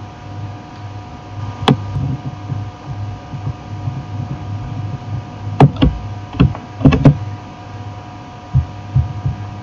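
Sharp clicks from a computer mouse and keyboard, one early, then a cluster of five in quick succession past the middle and a few softer ones near the end, as text is selected and copied. A steady electrical hum runs underneath.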